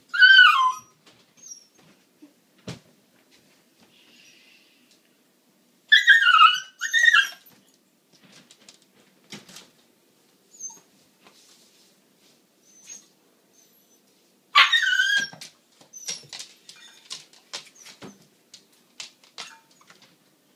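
Siberian husky puppy giving high-pitched, falling whining cries, impatient while waiting to be fed. There are about four cries: one at the start, two close together about six seconds in, and one about fifteen seconds in. Light clicks and taps sound in the gaps between them.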